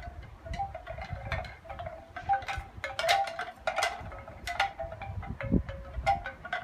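Wind chimes clinking and ringing in irregular, overlapping strikes, several notes sounding together at times.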